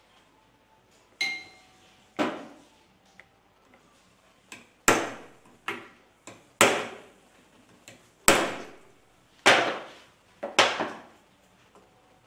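Claw hammer blows on a miniature brass cannon's carriage during assembly: about a dozen sharp strikes at an uneven pace, each with a short metallic ring, the early ones light and the loudest in the second half.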